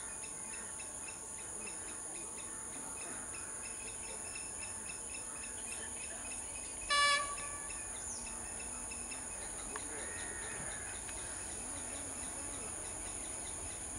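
Short horn blast, one steady tone about halfway through, from an approaching Class S14 diesel multiple unit, over a steady high-pitched drone of crickets and a faint rumble of the train.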